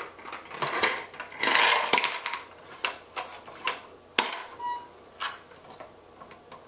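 Irregular clicks and knocks, with a short rustling burst about a second and a half in; no steady vacuum motor is heard.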